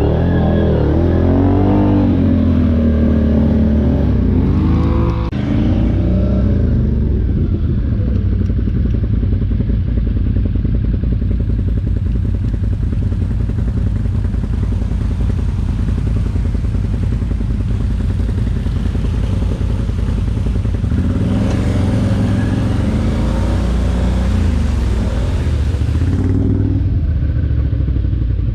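ATV engine running while being ridden, revving up and down for the first few seconds, then holding a steady drone, and revving again about twenty seconds in.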